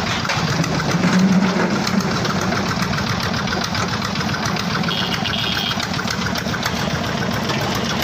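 Diesel Petter engine running steadily with a fast, even chugging beat, working a construction bucket hoist; it gets a little louder about a second in.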